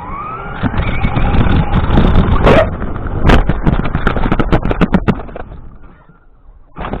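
RC car driving: its motor whines higher as it speeds up, over a dense clatter of wheels and body on the ground. The sound drops away briefly about six seconds in, then starts again.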